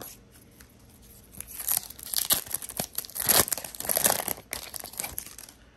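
Foil Yu-Gi-Oh booster pack wrapper being torn open and crinkled, starting about a second and a half in and stopping near the end.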